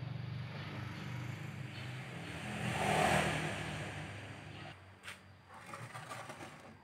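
A motor vehicle's engine passing, swelling to its loudest about three seconds in and then fading away. A few light clicks and knocks follow near the end.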